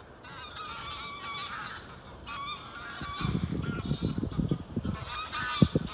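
A flock of geese flying overhead, calling, with many honks overlapping throughout. A low rumbling joins in from about three seconds in.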